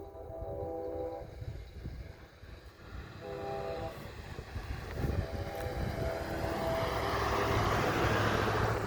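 Locomotive horn sounding for a grade crossing: a long blast ending about a second in, a short one, then another long one, the end of the long-long-short-long crossing signal. A rushing noise builds toward the end.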